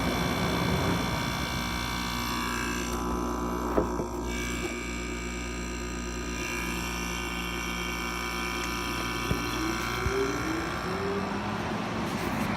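GE 5010 BTU window air conditioner running, its compressor humming steadily. The higher fan tones drop away just at the start, and a rising whine comes in near the end as the fan speeds back up.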